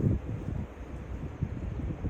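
Strong wind blowing across the microphone: an uneven low rumble that gusts hardest right at the start, then eases.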